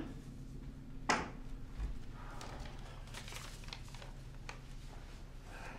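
Quiet room with a low steady hum. A single sharp click comes about a second in and a soft thud just after, then faint shuffling as people move about.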